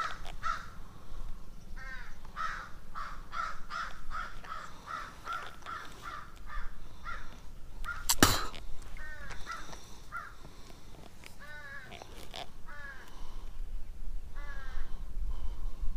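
Birds calling repeatedly: a quick, evenly spaced run of harsh calls from about two to seven seconds in, then shorter calls every second or so. A single sharp click about eight seconds in is the loudest sound.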